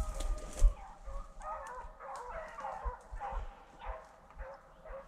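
Rabbit-hunting dogs yelping and baying, several voices overlapping, loudest a second or two in and thinning toward the end. It follows a few footfalls crunching through dry brush in the first second.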